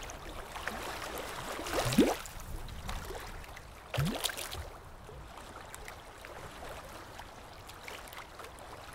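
Water gurgling steadily, with short rising bubbling gulps about two and four seconds in, then growing quieter toward the end.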